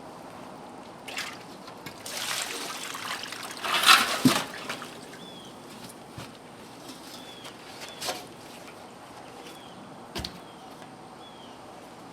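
Water splashing and trickling out of an old, cut-open well expansion tank, a rush that builds about two seconds in and is loudest around four seconds in, with a few short knocks later on.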